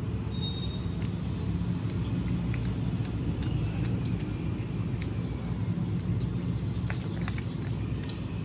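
Close-up eating sounds: chewing with small wet mouth clicks and fingers handling rice and an aluminium foil tray, with a cluster of clicks about seven seconds in. Over it runs a steady low rumble, the loudest thing heard.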